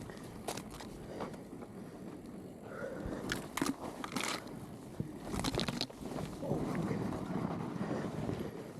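Snow crunching under steady movement, with several sharp clicks and knocks in the middle.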